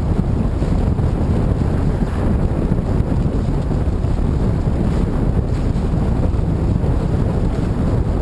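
Steady wind buffeting the microphone aboard a Marstrom A-Class catamaran sailing at about 11 knots in 8 knots of wind, a constant rumbling rush with no let-up.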